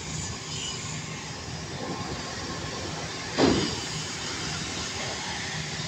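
Air compressor running steadily, pressurising the oil cooler for its air pressure test. About three and a half seconds in there is a brief, loud burst of noise.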